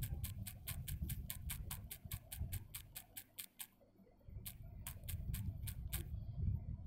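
Rapid clicking of typing on a smartphone's touchscreen keyboard, about five key clicks a second, with a short pause about three and a half seconds in before a second run.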